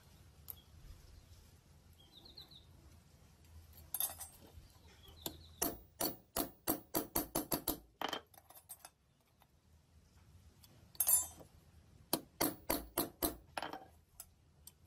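A hammer beats a flat steel cable-cutter handle on a steel block. It comes in two quick, even runs of sharp metal blows, about four a second: some nine blows just past the middle and about seven near the end. A louder clatter comes before each run.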